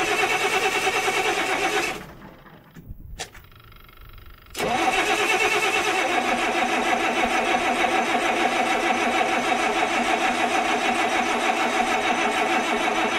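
Electric starter cranking a Caterpillar 3126 MUI diesel engine without it firing: a short crank of about two seconds, a pause, then a long steady crank of nearly ten seconds with a fast, even pulsing and a steady whine from the starter. This is the engine's hard-start condition, which the owner traces to a shot O-ring on the fuel system's valve regulator that lets injector pressure bleed off.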